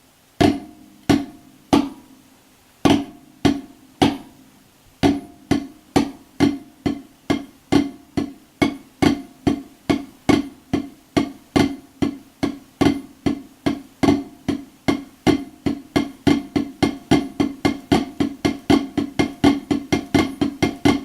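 Drumsticks on a drum playing the Swiss Army triplet rudiment led with the left hand (left flam, right, left). The strokes start slow and speed up gradually.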